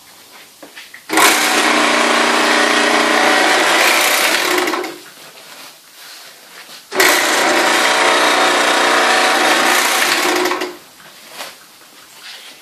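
NEWLONG DS-9C bag closer sewing machine running in two spells of about three and a half seconds each, starting abruptly about a second in and again about seven seconds in, each a steady mechanical whir that stops sharply. Faint clicks and knocks fall in the pauses between runs.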